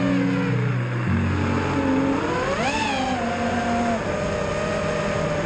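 FPV quadcopter's electric motors whining, the pitch swinging with throttle: a quick rise and fall about two and a half seconds in, then a steadier whine.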